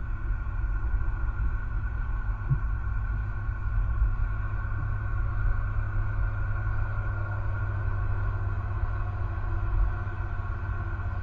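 Steady low outdoor rumble with a constant higher-pitched drone over it, unchanging throughout.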